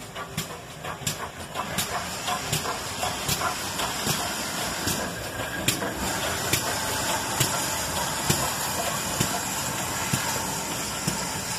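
GWR 4575-class small prairie tank locomotive 5541 moving slowly with its train: a steady hiss of steam with regular sharp beats a little under a second apart, growing louder as it comes closer.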